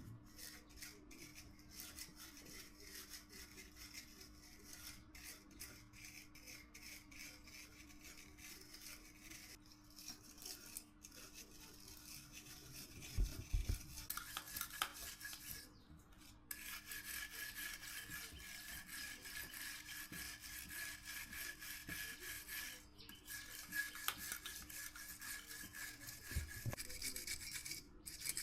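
Hand work on metal, rubbing and scraping, with a couple of dull knocks; a little past halfway a small high-pitched motor starts running steadily.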